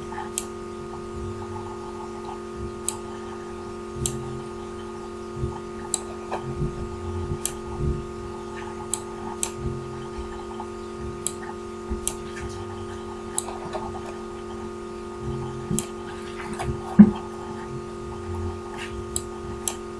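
Computer mouse clicking every second or so, short sharp clicks, over a steady electrical hum. One louder knock comes about three-quarters of the way through.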